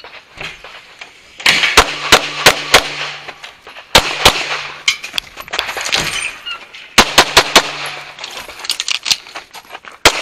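Semi-automatic pistol fired in quick strings of shots, runs of two to five sharp reports in rapid succession, with pauses of a second or more between strings.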